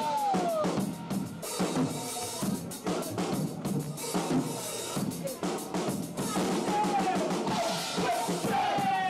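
Rock drum kit played live: kick, snare and cymbals in a steady beat, with a sliding high note over it near the start and again near the end.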